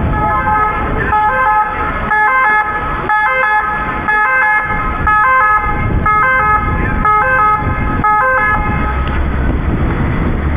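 Ambulance's two-tone siren, switching back and forth between a high and a low pitch about once a second as the ambulance arrives, then cutting off near the end, leaving a low engine rumble.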